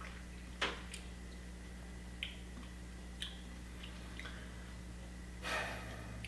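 Quiet mouth sounds of a man chewing a bite of microwaved meatloaf: a few faint wet clicks and smacks about a second apart, the sharpest about half a second in, and a short soft rush of breath near the end, over a low steady electrical hum.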